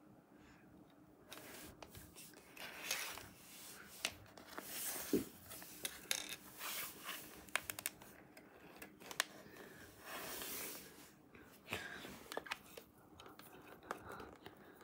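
Handling of a plastic action figure: scattered sharp clicks and taps of hard plastic parts being fitted and moved, mixed with bursts of rustling and crinkling.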